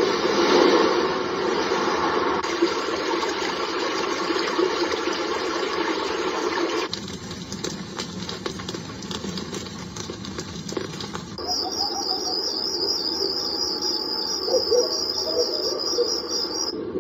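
Nature-sound tracks from the Blonbar wake-up lamp alarm clock's small built-in speaker, switching every few seconds as the sound number is stepped through: a rushing noise, then a duller, lower rushing noise about 7 s in, then a high, pulsing cricket-like chirping from about 11 s in until it cuts off near the end.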